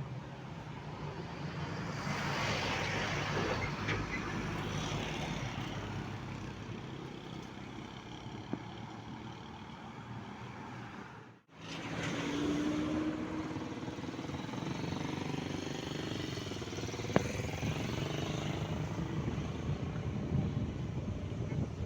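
City street traffic: cars and trucks passing with a continuous hum of engines and tyres, swelling as vehicles go by. About halfway through the sound drops out for a moment and the traffic comes straight back.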